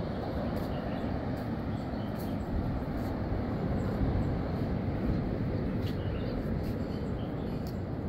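Steady low rumble of wind on the microphone, with a few faint high chirps.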